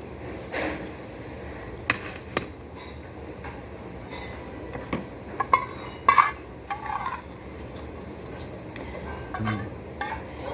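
Cutlery clinking and tapping against dishes while eating, in scattered sharp clicks with a few short ringing clinks.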